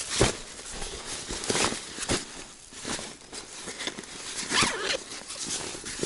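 Rubber waders rustling and scraping as they are pulled on and adjusted, in a string of irregular swishes.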